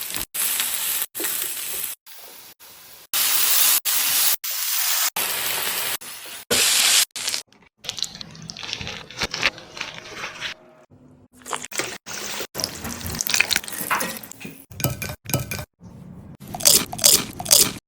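Cooking sounds in a run of short edited clips: papad rolls sizzling as they fry in hot oil, then the crisp papad crackling and crunching.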